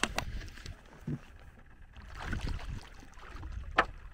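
Scattered knocks and clicks from handling gear and fish in a small fishing boat, with a short scraping noise around the middle and the sharpest click near the end.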